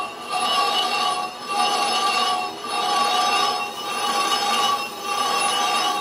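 Lathe cutting tool machining a cast iron truck brake drum as it spins, the tool and drum giving a high, ringing squeal. It swells and dips about once a second.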